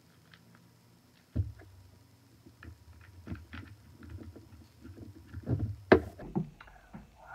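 Scattered clicks and knocks from a plastic glue bottle being squeezed and handled over a glass bowl, with a sharp knock near the end as the bottle is put down on the table.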